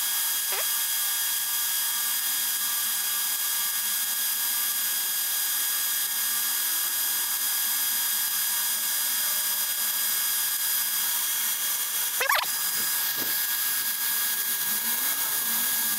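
Electric drill running steadily with a conventional Unika tile bit grinding into marble tile, a steady high whine as the bit cuts slowly into the hard stone. There is a brief swish about twelve seconds in.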